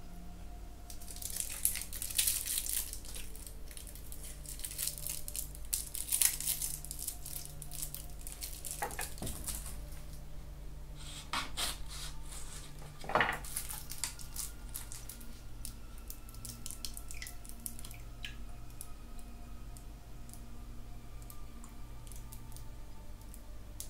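7-Up lemon-lime soda being poured, fizzing and crackling in bursts for several seconds, with a sharp knock about thirteen seconds in. It is quieter in the second half.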